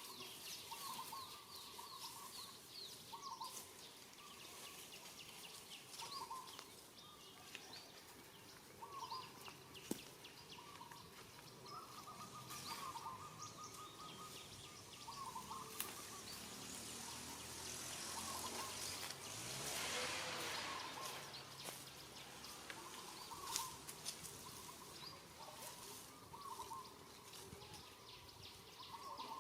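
Short chirping animal calls repeating over outdoor background noise, with a few sharp clicks. A rushing, rustling swell rises and falls about two-thirds of the way through.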